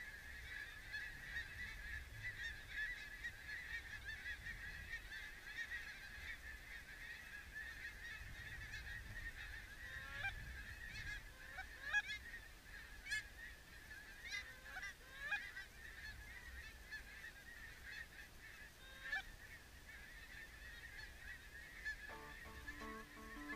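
A large flock of lesser Canada geese calling at a distance: a steady chorus of many overlapping honks and cackles, with a few nearer, louder honks standing out about halfway through.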